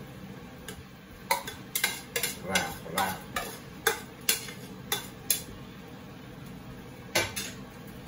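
Spatula knocking and scraping against a frying pan as chopped greens are stirred into the meat: a run of sharp, irregular clacks between about one and five seconds in, and one more near the end.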